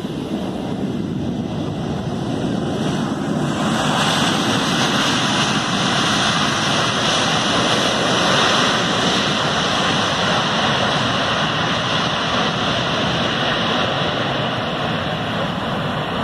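Twin-engine jet airliner's engines running up into reverse thrust on a wet runway after touchdown, a loud rushing noise with the hiss of runway water being blown out the sides of the engines. The noise swells about three to four seconds in, holds, then eases slightly near the end as the plane slows.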